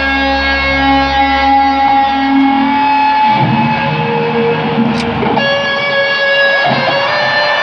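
Distorted electric guitar playing a solo of long held, sustained notes, amplified live through a stadium sound system. A low backing drone underneath fades out about three seconds in.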